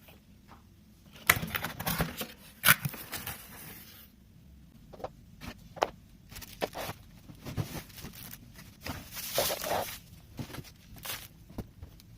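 Unpacking by hand: paper and plastic packaging rustling and crinkling in irregular stretches, with scattered light knocks and clicks as parts are handled.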